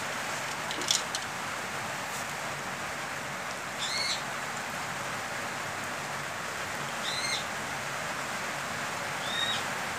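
Hot water pouring from a metal stovetop kettle into a mug, a steady hiss of water. A bird chirps three times, at about four, seven and nine and a half seconds in.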